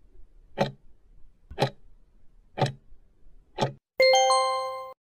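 Countdown-timer sound effect: clock ticks once a second, four times, then a ringing chime at zero that lasts about a second and cuts off.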